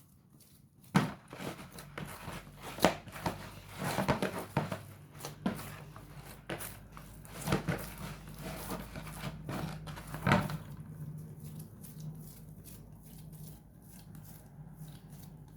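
Hands kneading oiled wheat-flour dough for half cakes: irregular slaps, squelches and knocks for about ten seconds, then it goes quieter.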